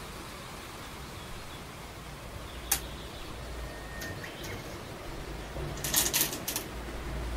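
Go stones clicking: one sharp click nearly three seconds in, a few faint clicks a little later, then a quick cluster of clicks about six seconds in, over a steady hiss.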